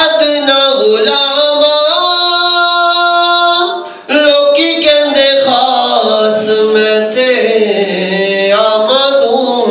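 A man singing a naat, a devotional poem in praise of the Prophet, unaccompanied, with long held notes that glide from pitch to pitch. He pauses for a breath about four seconds in.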